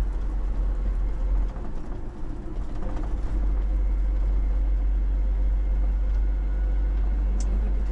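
Steady low road and engine rumble heard inside the cabin of a moving minibus, dipping briefly about two seconds in.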